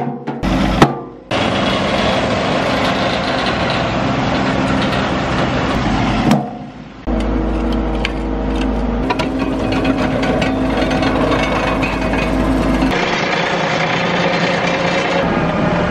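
Compact tractor engines running steadily while soil is worked, with scraping and knocking of dirt and rocks. The sound changes abruptly a few times.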